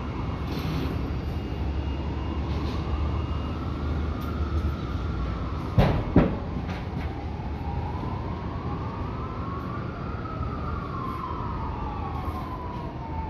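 A wailing siren, its pitch slowly rising and falling over several seconds, with a second wail overlapping it in the later part, over a steady low rumble. Two sharp knocks sound close together about halfway through.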